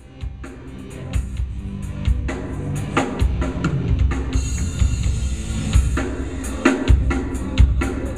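Live drum kit played through the venue's sound system at a sound check: a steady groove of kick and snare hits that swells up over the first couple of seconds. Deep sustained low notes run under the drums, and a cymbal wash joins about halfway through.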